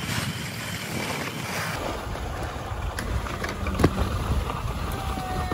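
Skis hissing over soft snow with wind rushing on the microphone while skiing downhill, and one sharp clack about four seconds in.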